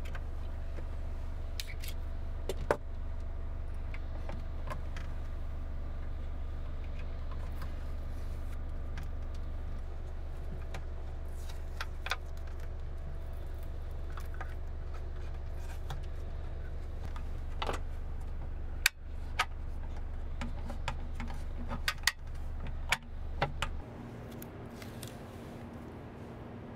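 Scattered light clicks and knocks of a small metal catch and screwdriver being worked on a wooden box lid, with a few louder taps in the second half, over a steady low hum that stops near the end.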